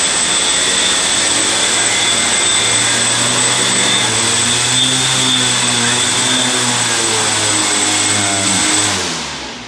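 DroidWorx SkyJib Light X4 octocopter's eight brushless motors and propellers running on a test stand: a loud, steady whirr with a high whine, its pitch shifting a little mid-way. Near the end the motors spool down and the sound fades out.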